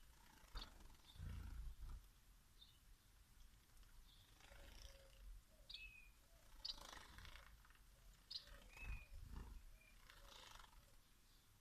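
Society finches bathing in a shallow water dish: faint splashing and wing flutters come every few seconds, with short high chirps scattered between them.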